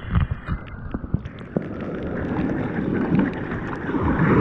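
Surf water rushing and splashing around a kayak as it is paddled out through shore break, with wind buffeting the microphone. The rush grows louder near the end as a breaking wave reaches the kayak.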